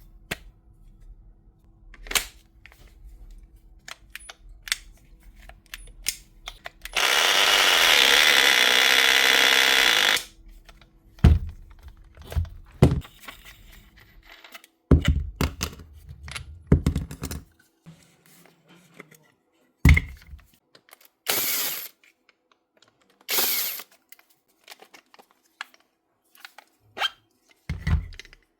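Workshop handling sounds of a cordless power tool being worked on: scattered clicks and knocks with several heavier thuds, and one loud, steady burst of noise lasting about three seconds a quarter of the way in.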